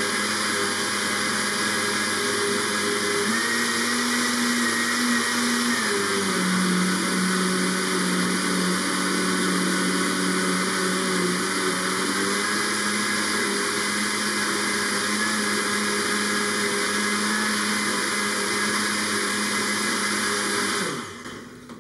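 Countertop blender motor running at full speed, blending ice, water and chopped vegetables into a runny smoothie. The motor's pitch rises briefly a few seconds in, then settles lower. It switches off near the end.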